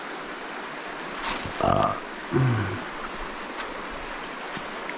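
Shallow rocky stream running over a riffle, a steady rushing of water. About a second and a half and two and a half seconds in, two short vocal sounds rise above it, the second falling in pitch.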